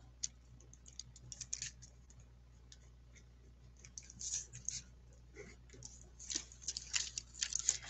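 Faint, irregular scratching and clicking of a drawing tool on paper as a bird outline is traced, in short runs about four seconds in and again near the end.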